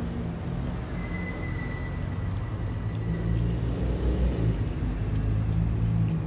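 A steady low mechanical drone, several low tones held evenly, with a faint thin whine about a second in that fades out after a couple of seconds.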